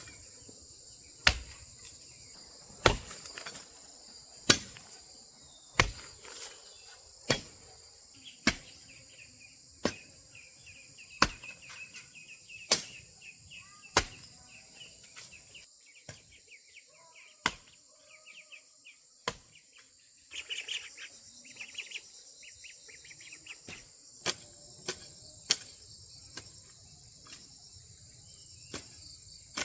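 Sharp knocks of a tool striking, roughly one every second and a half, coming a little quicker near the end. Under them runs a steady high drone of insects, with a few short bird chirps.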